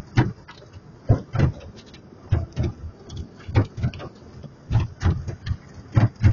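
Cloth strips of a tunnel car wash's rotating brushes slapping against the car's windscreen and body, heard from inside the cabin: a steady rhythm of paired thuds about every second and a quarter.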